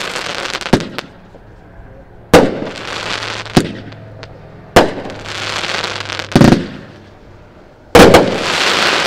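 Consumer multi-shot fireworks cake firing shot after shot: a sharp bang about every second and a half, each followed by a second or so of crackling hiss as the stars burst.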